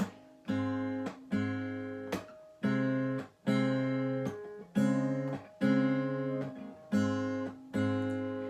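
Acoustic guitar strumming chords on its own, one strum about every second, each ringing out and fading before the next.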